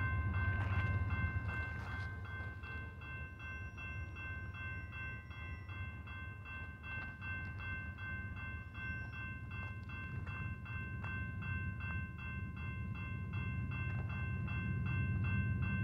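Railroad crossing bell ringing in rapid, evenly repeating pulses while the crossing gates are down, over a low rumble that grows louder near the end.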